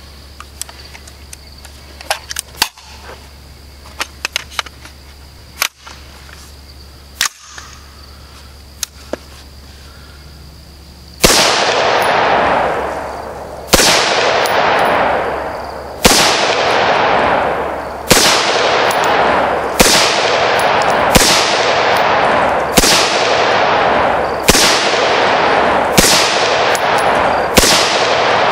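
Scattered small clicks and knocks from the AR carbine being handled. Then, about eleven seconds in, ten single shots from it at an unhurried pace, roughly one every two seconds, each with a long echo that fades away.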